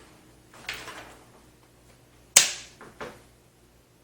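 A drive tray sliding into a PC case's drive bay with a short scrape, then snapping home with one sharp click and a lighter click just after: the tray locking in place.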